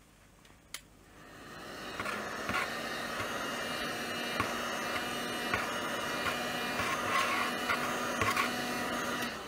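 Hot air gun blowing steadily: it comes up to speed over about a second near the start and cuts off near the end, with a few light clicks over the airflow.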